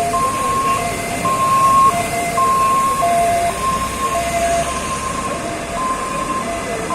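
Emergency vehicle's two-tone hi-lo siren, switching between a high and a low note about every half second, over street noise.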